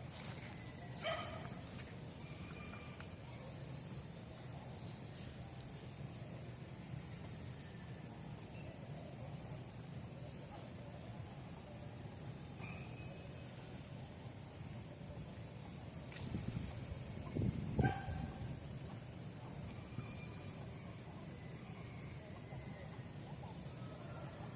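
Puppies giving short barks, one about a second in and a louder one around seventeen seconds in, over a steady high drone of insects with a short chirp repeating about once a second.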